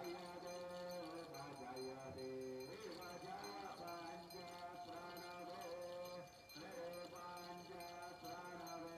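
A man's voice chanting a Hindu aarti hymn in long held notes, in phrases with brief breaks about three and six seconds in. A small hand bell rings in quick, regular strokes underneath.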